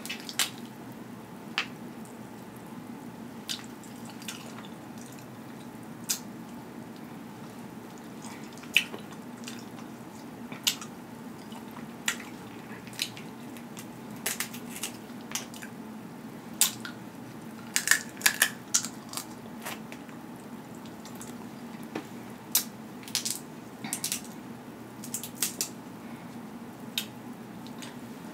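Snow crab leg shells being snapped and cracked open by hand: sharp, irregular cracks and clicks, some in quick clusters, as the meat is pulled out.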